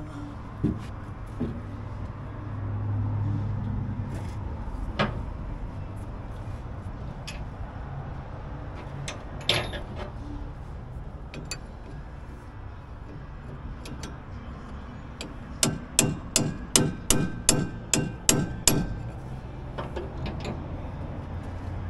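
Hammer striking metal during work on a military wrecker's winch: scattered clanks of tools, then about ten quick ringing blows, about three a second, near the end.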